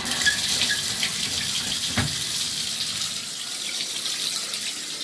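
Water running steadily from a tap turned on full hot, drawing hot water out of the water heater tank. A single short knock about two seconds in.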